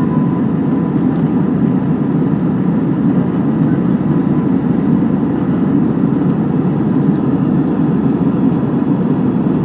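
Steady cabin noise of an Airbus A320 climbing out after takeoff: a constant low rumble of engines and airflow heard from inside the passenger cabin.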